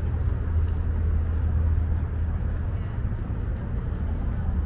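Outdoor city ambience: a steady low rumble with people talking in the background.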